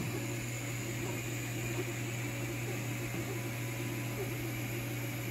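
Longer Ray 5 diode laser engraver running a cut job on cardboard: a steady machine hum with hiss.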